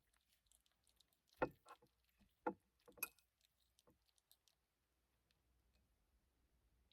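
Near silence, with a few faint clicks and knocks in the first half.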